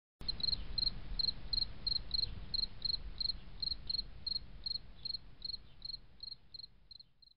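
A cricket chirping steadily, about three short high chirps a second, over a faint low rumble, fading out near the end.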